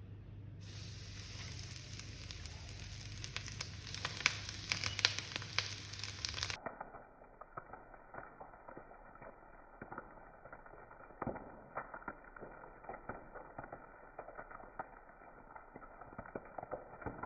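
Prawns frying in hot oil in a pan, with a steady sizzle and many small crackles and pops. About six and a half seconds in, the sound turns duller and the low hum underneath drops away.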